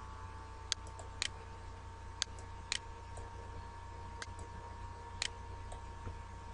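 Sparse, sharp ticks that fall on an even half-second beat, some coming in pairs half a second apart, over a steady electrical hum with a faint high whine.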